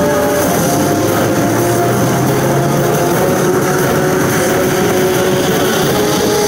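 Toyomaru Road Pharaoh pachinko machine running its electronic sound effects: a loud, steady rushing drone with held tones, over the dense rattle of balls.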